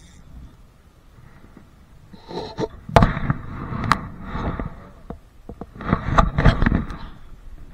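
Handling noise from the camera being moved and bumped: two spells of sharp knocks and clicks over a rumbling rustle, the first about two seconds in and the second near the end.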